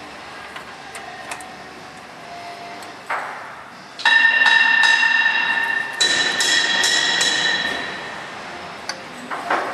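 Steel hand tools clinking against metal parts. About four seconds in, a series of sharp strikes sets up a clear bell-like ring that is struck again about three times a second and dies away near the eight-second mark.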